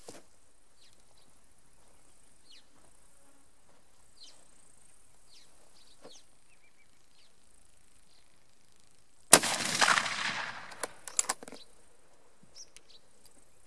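A single shot from a 7x57 mm Mauser rifle about nine seconds in: a sharp crack whose report rolls on loudly for about two seconds, with a couple of sharp clicks near its end. Before the shot only a faint high insect hum.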